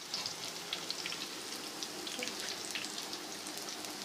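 Besan-battered colocasia (arbi) leaf pakoras deep-frying in hot oil in a kadhai: a steady sizzle with many small crackles and pops.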